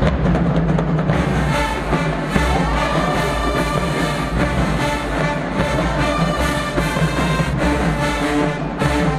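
HBCU show-style marching band playing at full volume: brass section and sousaphones over a drumline, with heavy low brass and drums underneath.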